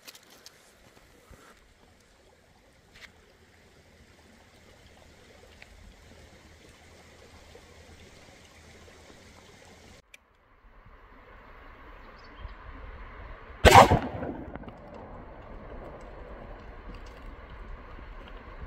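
One loud, sharp bang a little under two-thirds of the way through, over steady outdoor background noise that gets louder after an abrupt cut about ten seconds in.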